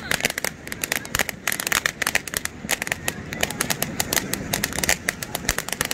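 Ground fountain firework spraying sparks with a dense, rapid crackling, many sharp pops a second.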